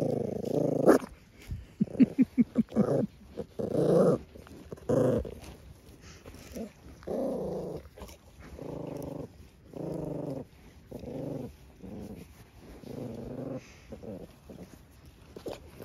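Small sheepdog growling at a ewe that has come close, in a string of low growls of about half a second each, rasping in quick pulses about two seconds in. It is a guarding growl, warning the ewe away from the dog's owner.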